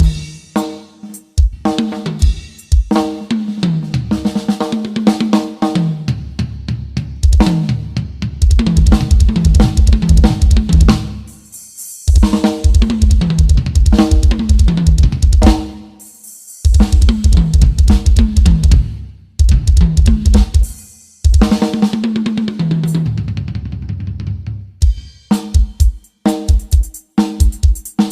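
Drum kit solo played as a sound-system test track: very fast double bass drum runs under cymbals and snare, broken up by tom fills that step down in pitch, with a few short stops.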